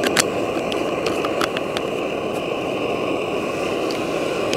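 A PT-1 petrol primus stove burning under a pot of water with a steady rushing noise, still warming up its own fuel tank before the flame strengthens. A few small clicks come in the first second and a half as the cap of a plastic water bottle is closed.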